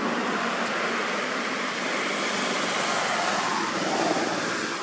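Steady rushing outdoor background noise with no distinct events, swelling slightly about four seconds in.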